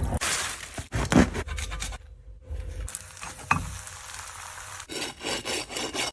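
Kitchen sounds: a hand blender running in soup at the start, a sandwich frying in a pan in the middle, and near the end a knife sawing through toasted grilled-cheese bread with crunching, scraping strokes.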